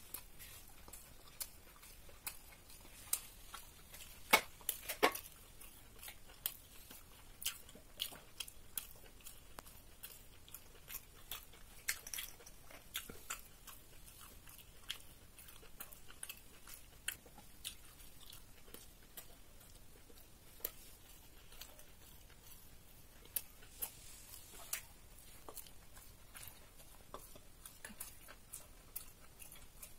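A person chewing and eating roti and egg paneer curry by hand: a run of soft, scattered mouth clicks and smacks, with two louder sharp clicks about four and five seconds in.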